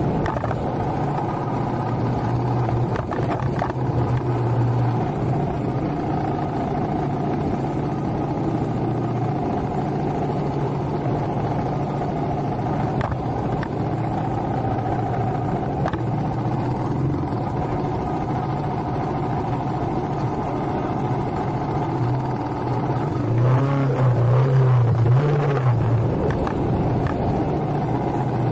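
Motorcycle engine running at a steady low speed as the bike climbs a rough, broken concrete track. For a couple of seconds near the end its note wavers and grows louder.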